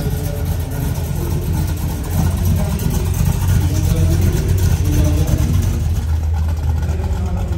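A car engine idling with a steady low rumble, with people talking in the background.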